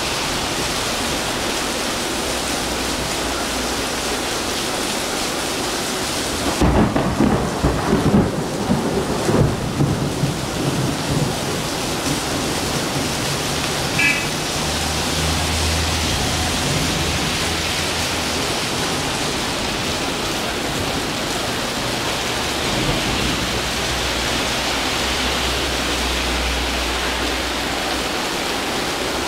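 Heavy rain pouring steadily, with a rolling rumble of thunder a few seconds in that lasts about four seconds. Later, cars pass on the wet road with a low hum.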